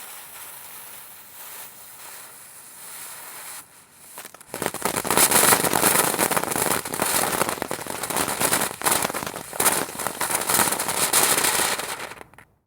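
Firework fountain hissing quietly, then breaking into loud, dense crackling about four seconds in. The crackling stops suddenly near the end.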